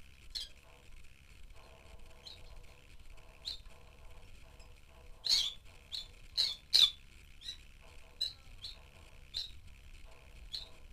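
Rosy-faced lovebirds giving short, sharp, high chirps at irregular intervals, with a cluster of louder ones about halfway through.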